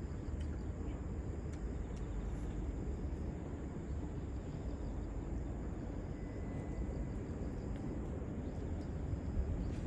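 Steady low outdoor rumble with no distinct event, only a few faint ticks above it.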